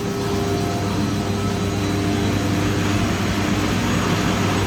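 Steady hum of running mechanical-room equipment: a low drone with a few held tones over an even rushing noise, unchanging throughout.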